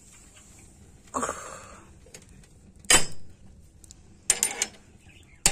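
Handling noises at a wood-burning cook stove: a scraping rustle about a second in, then a sharp knock about three seconds in, and a quick run of clicks and another knock near the end.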